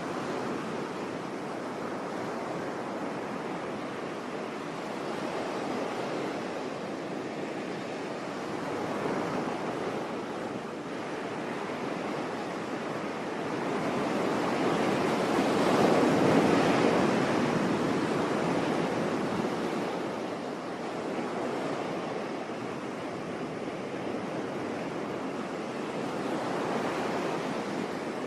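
Sea waves breaking and washing on a shore, a steady surf that swells and recedes in slow surges, with one larger wave about halfway through.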